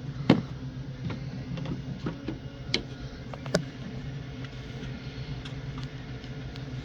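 Sharp clicks and light knocks at irregular intervals, about seven of them, over a steady low hum.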